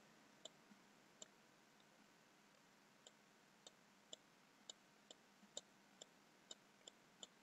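Faint clicks of a computer mouse button as it is pressed for short sculpting brush strokes. There are about a dozen clicks: a couple in the first seconds, then roughly two a second.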